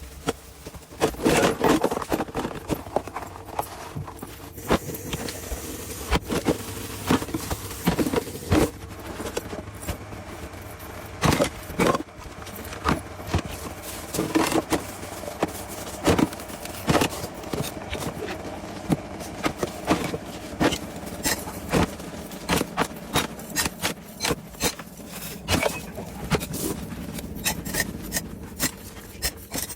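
Irregular knocks and clinks of hard objects, with some scraping and rubbing, over a faint steady hum.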